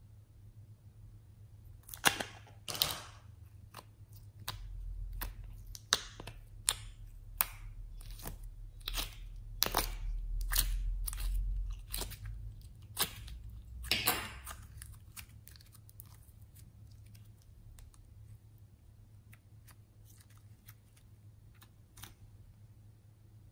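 Sharp plastic clicks and cracks from a flower-shaped plastic slime container being handled and its clear compartments pried apart. Scattered single clicks come one after another, with a low handling rumble in the middle.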